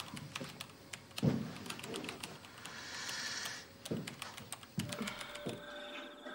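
Typing on a computer keyboard: a run of quick key clicks, with a few heavier thumps among them. A faint steady tone comes in near the end.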